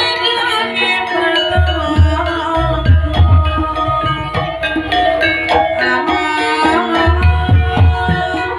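Javanese gamelan music: sustained pitched tones layered over deep hand-drum (kendang) strokes that come in clusters.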